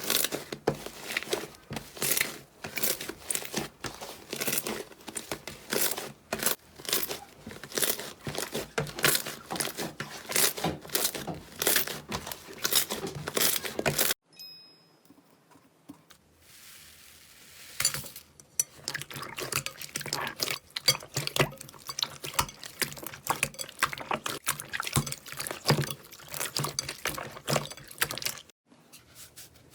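Slime being squeezed and pressed, giving a dense run of crackles and pops. It drops to a faint hiss for about four seconds midway, then the crackling starts again.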